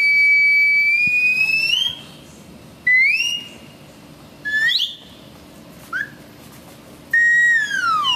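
A whistle sounding the flight of a character fired from a cannon: a long held high note that rises at the end, then a few short rising toots, and near the end a long note that slides downward.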